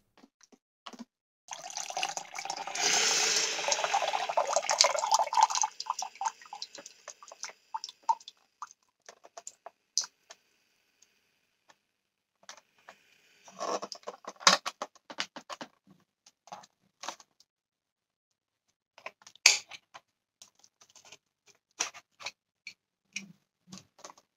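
Leftover water pouring out of a Philips Azur steam iron's tank into a plastic measuring jug: a steady pour of about four seconds trailing off into drips, then a second, shorter pour about halfway through. Light clicks and taps of plastic being handled come in between and near the end.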